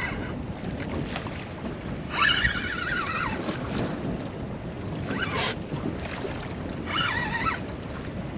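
Wind on the microphone and choppy sea water around a small inflatable boat, with a few short pitched whines about two, five and seven seconds in.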